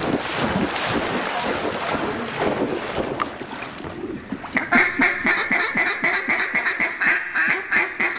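Water splashing at first, then about halfway through a fast, steady run of duck quacks lasting several seconds.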